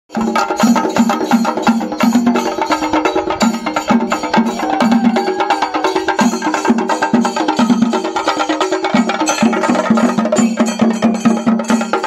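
Chenda melam: several Kerala chenda drums beaten with curved sticks in a dense, fast stream of strokes, with a lower drum tone pulsing in a regular rhythm underneath.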